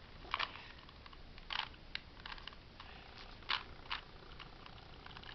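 Rubik's cube layers being twisted by hand: irregular plastic clicks and clacks, a few louder among many faint ones.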